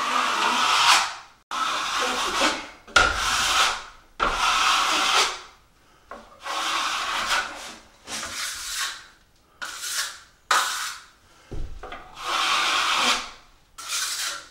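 Steel drywall trowel scraping wet joint compound: about ten long scraping strokes, a second or so each, as compound is screeded smooth over a mesh-taped flat seam and the excess is wiped off the trowel against a taping knife.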